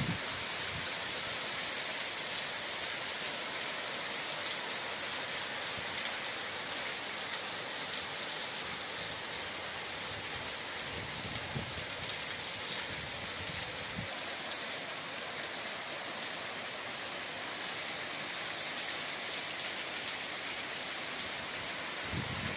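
Steady rain falling on surfaces, an even hiss of many drops. About halfway through come faint low rumbles of distant thunder.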